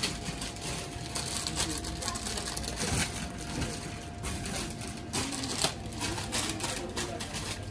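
Shop background noise: a faint murmur of voices with irregular clicks and clatter. A thin steady tone runs through the first half and fades out about halfway through.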